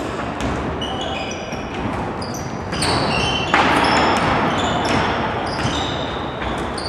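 Basketball game in a sports hall: sneakers squeaking repeatedly on the court floor and the ball bouncing, with a louder noisy stretch about halfway through.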